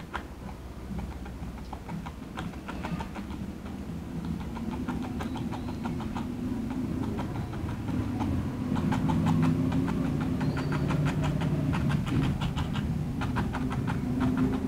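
A flat nylon brush dabbing paint onto stretched canvas in quick repeated taps, several a second. Under the taps runs a steady low rumble of background noise from the neighbours, which gets louder about halfway through.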